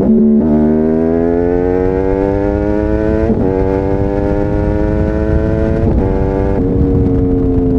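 Yamaha YZF-R1's crossplane inline-four through a Bodis slip-on exhaust, accelerating hard through the gears. The engine note climbs in pitch, then drops briefly at three upshifts, about half a second in, just past three seconds and around six seconds. Near the end the throttle eases off and the pitch sinks slowly.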